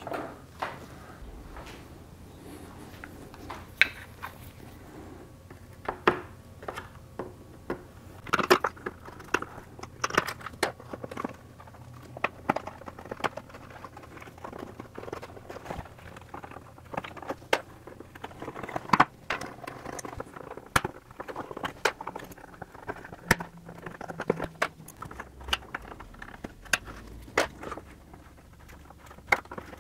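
White plastic retaining clips being pried out of a car's rear bumper and diffuser: irregular sharp clicks and snaps of plastic, with small scraping and handling sounds between them.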